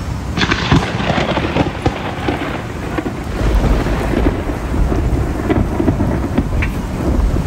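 Heavy rain falling with thunder; a deep rumble of thunder swells from about halfway through.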